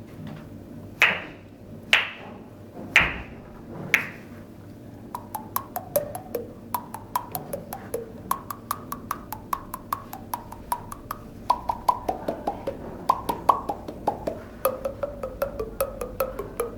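Percussive sound effects made with a person's mouth and hands: four loud, hollow pops about a second apart, then a quick run of clicks, about four a second, whose pitch rises and falls like a tune played on a wood block.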